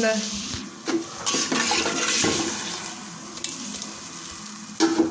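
Water swirling and sloshing in a cooking pot as a spoon stirs freshly added water into the chicken-and-potato masala for pulao, loudest in the first couple of seconds. A short loud knock comes near the end.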